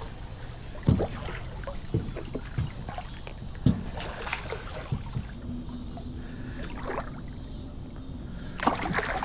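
Handling noises on a floating dock: scattered knocks and thumps, with water sloshing against the dock. A steady high drone of insects runs underneath, and a louder burst comes near the end.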